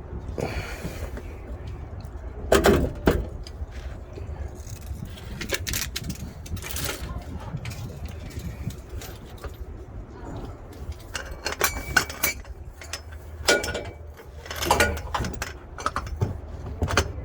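Scattered clicks, clinks and knocks of hand tools on a 2015 Toyota 4Runner's oil filter housing as it is worked loose during an oil change. The loudest knocks come about two and a half to three seconds in, over a steady low rumble.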